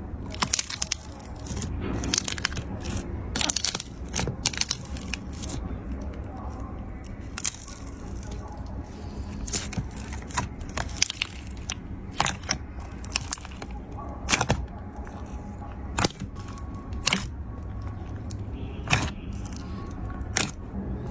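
Slime being pressed and squished by hand, giving irregular sharp crackles and pops.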